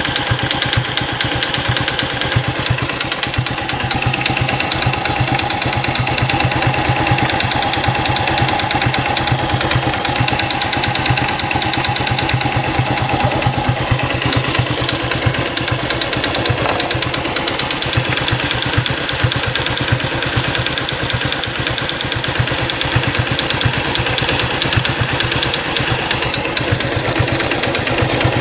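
An engine idling steadily, with an even, rapid beat.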